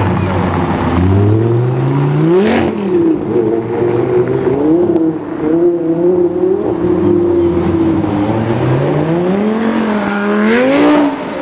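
Lamborghini Murcielago LP670-4 SV's V12 engine revving hard, loud. The pitch climbs steeply for the first two and a half seconds, wavers through a few shorter blips, then climbs again to a second peak near the end.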